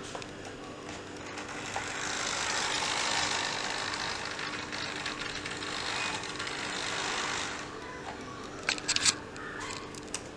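Model railway locomotive running along the layout track: a steady rushing noise from its wheels on the rails that swells about two seconds in and fades away near the end, over a constant low hum. A few light clicks follow near the end.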